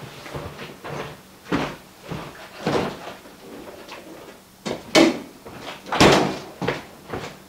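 A refrigerator door being opened and shut, with a few lighter knocks and steps; the two loudest knocks come about five and six seconds in.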